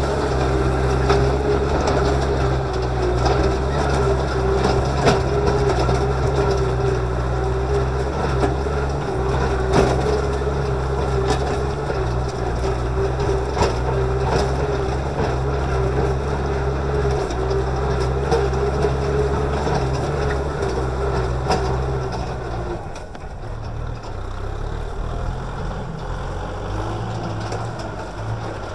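Kubota M6040SU tractor's diesel engine running steadily under load as its disc plow cuts through dry, cloddy soil, with scattered clicks and crunches of soil against the discs. About 23 seconds in the engine sound becomes quieter and its hum changes.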